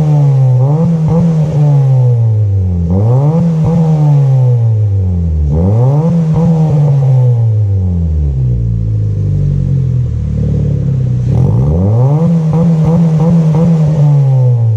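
Honda City 1.5-litre i-VTEC four-cylinder through a straight-pipe HKS exhaust, revved hard four times. Each time the pitch rises quickly, holds for a couple of seconds, then falls back, with a short stretch at idle before the last rev.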